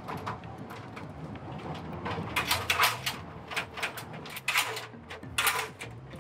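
Metal extension ladder clanking and rattling as firefighters raise and extend it against a tree. The clatter comes in irregular bunches, loudest from about two seconds in and again near the end.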